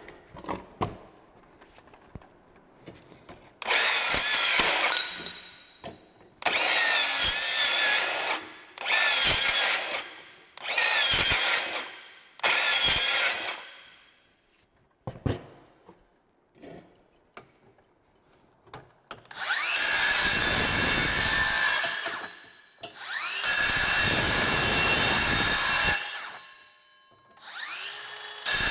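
Cordless metal-cutting circular saws cutting through thin steel electrical conduit. The Milwaukee makes five quick cuts in a row, each about a second long, then the Makita 18V brushless metal saw makes two longer, steady cuts of about three seconds each and starts up again near the end.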